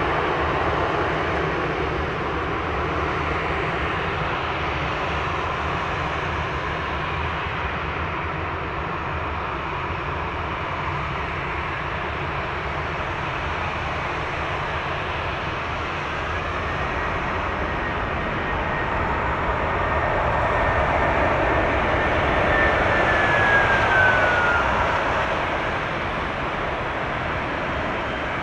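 Qantas Airbus A330-300 jet landing: a steady rush of engine noise on short final and through touchdown, then a louder rush during the landing roll peaking around twenty-three seconds in. A thin high whine sets in after touchdown and slides down in pitch as the noise eases.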